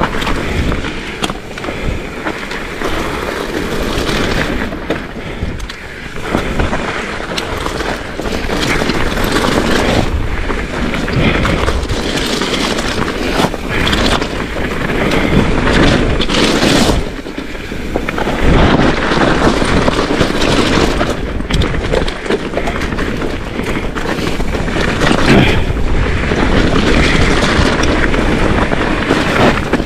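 Mountain bike riding fast down a loose shale trail: tyres rolling and skidding over shale, the bike knocking and rattling over bumps, and wind buffeting the microphone.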